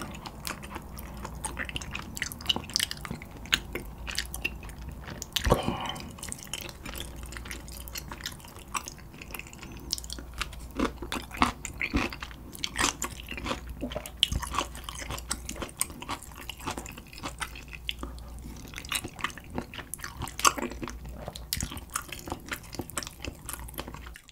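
Close-miked chewing of spicy Korean chicken feet (dakbal): wet mouth smacks and many irregular small sharp clicks.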